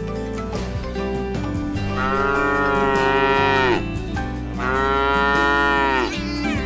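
A cow mooing twice: two long calls, each dropping in pitch as it ends.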